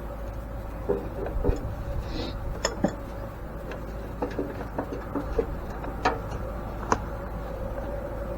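A dozen or so scattered clinks and knocks of metal parts and hand tools being handled while working on an old cast-iron grain mill, over a steady background hum.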